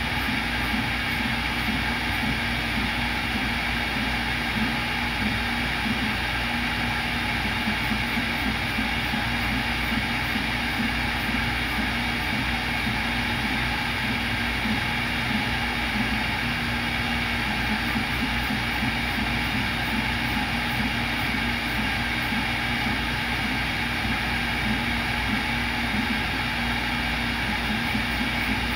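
CNC router spindle running steadily while drilling holes in a copper-clad circuit board blank: a constant machine hum with several steady tones and a faint flutter in its low tone.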